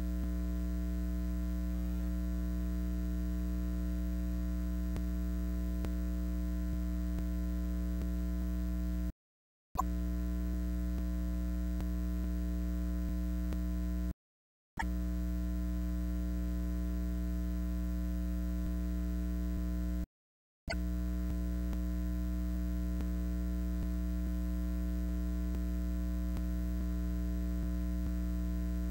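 Steady electrical mains hum in the audio feed with no other sound, cutting out to dead silence three times for about half a second each.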